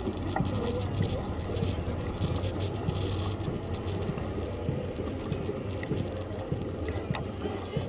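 Bicycle rolling over pavement, heard through a camera mounted on it: a steady low rumble with scattered small rattles and knocks.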